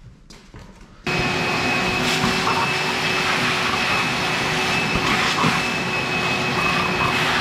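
Shop vacuum switched on about a second in, then running steadily with a whine as its hose nozzle sucks dust off a concrete bench top.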